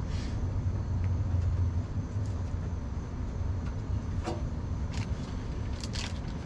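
A steady low rumble with a few light, scattered clicks of small parts and a screwdriver being handled while a screw is fitted into a Porsche 914's headlight mechanism.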